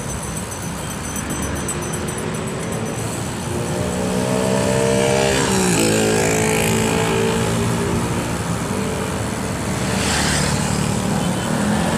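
Steady wind and road noise from riding a bicycle in traffic. About five seconds in, a motor vehicle's engine passes close by, its pitch dropping sharply as it goes past, and another engine comes up near the end.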